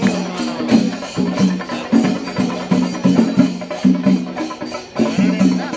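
Percussion-led festival music: drums beating a steady, driving rhythm of sharp strikes over a low pitched boom, with a wavering melodic line rising above it near the end.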